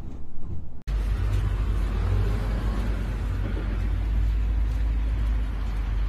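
Storm wind buffeting, heard from inside a car as a steady deep rumble with a rushing hiss over it. It switches abruptly just under a second in.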